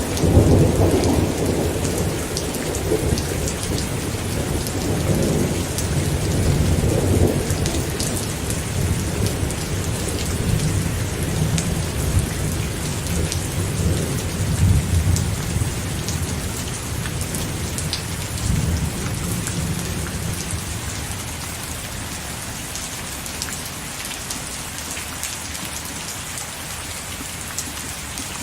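Steady rain with individual drops ticking, under a long low roll of thunder that is loudest at the start and dies away about two-thirds of the way through.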